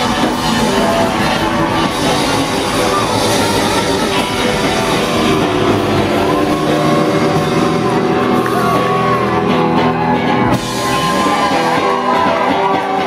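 Live rock band playing loud: electric guitars over bass and drums, with a brief dip in level about ten and a half seconds in.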